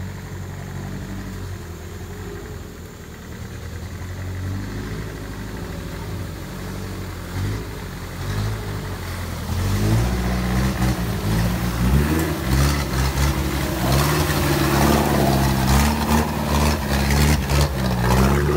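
Four-wheel-drive truck engine revving under load, its pitch stepping up and down, growing clearly louder about ten seconds in with a rushing noise over it.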